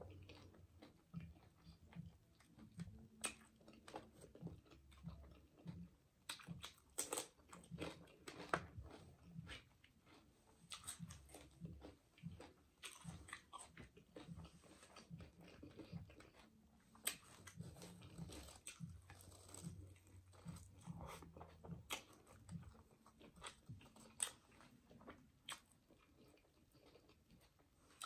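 A person chewing and biting food close to a microphone, with scattered short crunches and clicks, the loudest about seven to nine seconds in.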